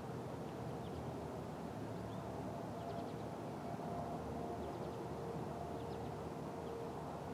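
Distant P-50 outdoor warning siren holding a faint steady tone that swells and fades. It is stuck running, a fault blamed on a welded relay. A few short bird chirps sound over it.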